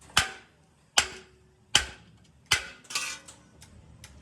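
Hammer striking metal: about five sharp blows a little under a second apart, each with a short ring.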